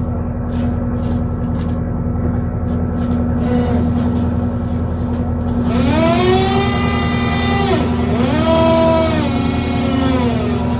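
Steady engine drone, with a machine whine that twice spins up, holds its pitch and winds back down in the second half.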